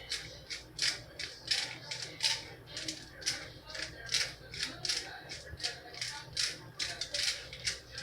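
Hand-twisted grinder grinding sea salt, in quick repeated crunching strokes at about three a second.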